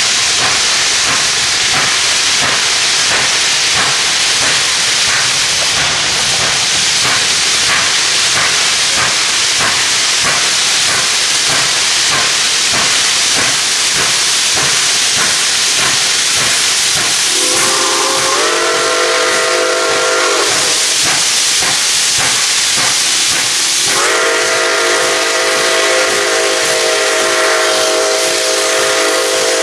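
Nickel Plate Road 765, a 2-8-4 Berkshire steam locomotive, working slowly up a grade with a loud steam hiss and steady exhaust beats. Its chime whistle sounds two long blasts of several tones at once: one of about three seconds a little past halfway, and a second, longer one from near the end, as for a grade crossing.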